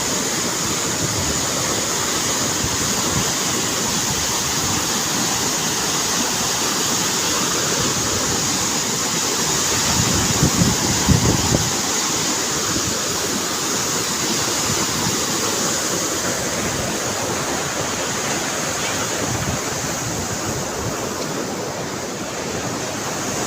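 Waterfall rushing steadily, with a brief louder low rumble about ten seconds in.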